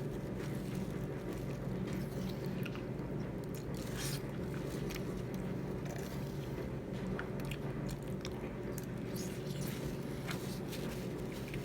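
Close-up eating sounds: biting and chewing food, with scattered short mouth clicks and crunches over a steady low background hum.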